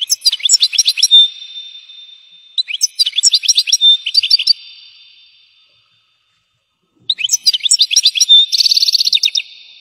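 European goldfinch singing: three bursts of rapid, high twittering notes with short pauses between them, the last ending in a fast trill.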